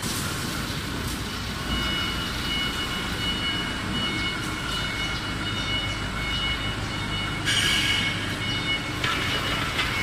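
Vertical glass washing machine running, its brush rollers and drive giving a steady mechanical noise with two high steady whining tones. Louder hissing surges come near the end.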